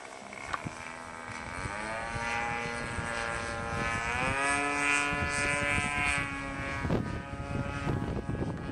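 Radio-controlled model airplane engine running in flight, its pitch stepping up about two seconds in and again around four seconds, then dropping near seven seconds.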